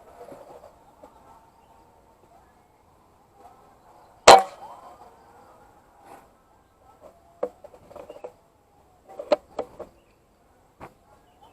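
A single sharp air-rifle shot about four seconds in, followed by scattered quieter clicks and knocks over faint background calls.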